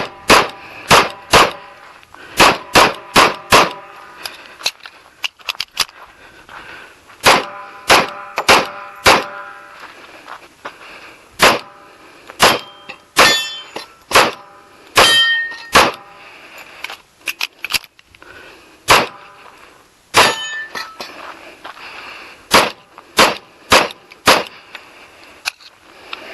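A .45 ACP 1911 pistol fired in quick strings of shots, with short pauses between the strings. A short metallic ringing follows some of the shots.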